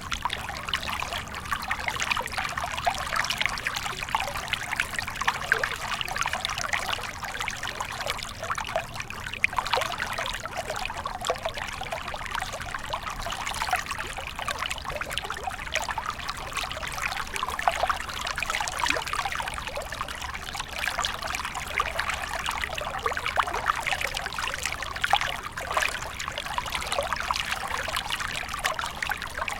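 Small stream running steadily, water trickling and splashing over stones in a dense, even babble.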